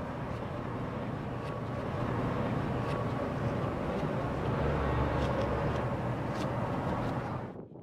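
City street ambience: a steady hum of traffic with a vehicle's low rumble swelling in the middle, cutting off suddenly near the end.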